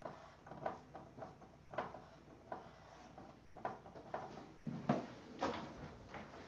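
Pencil strokes scratching on paper while sketching, short and irregular, with a few heavier strokes in the second half.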